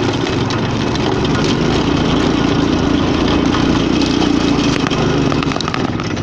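Go-kart's small engine running steadily under power while driving, with a few short rattling clicks near the end.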